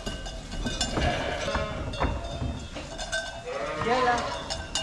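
Sheep bleating, with a wavering bleat near the end, among a few short knocks and rattles from the pens.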